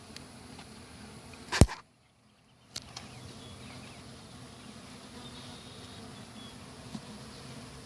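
Honey bees from an opened colony buzzing steadily. A sharp click comes about one and a half seconds in, followed by a brief drop to near silence before the buzzing resumes.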